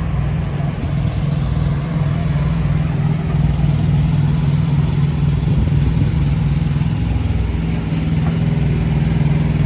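Semi-truck diesel engine idling steadily close by, an even low hum.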